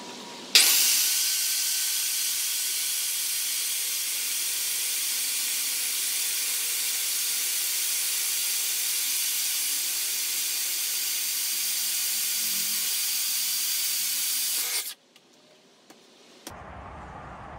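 Ryobi miter saw starting up about half a second in and running steadily as its blade cuts through a Douglas fir 4x6 beam, then cutting off abruptly near the end.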